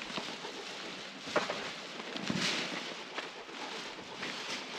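Plastic sheeting rustling and crinkling as it is handled, with a few sharper crackles.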